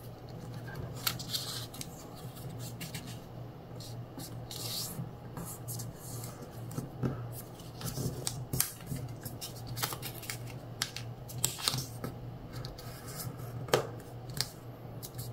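A square of origami paper rustling and scraping under fingers as it is folded and the creases are pressed flat, in scattered short strokes.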